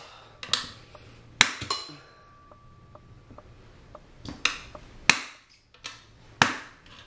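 Metal tire-changing rods and tools clinking and knocking against a motorcycle wheel and tire in about six sharp strikes, with a faint metallic ring after one of them.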